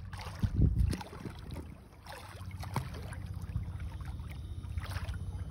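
Water splashing lightly around a swimmer being pulled along by a sea scooter, over a steady low rumble, with a loud buffeting burst about half a second in.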